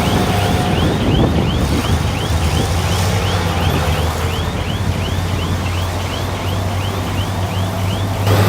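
Heavy diesel construction machine engine running steadily, with a high chirp repeating about three times a second over it. The engine grows louder near the end.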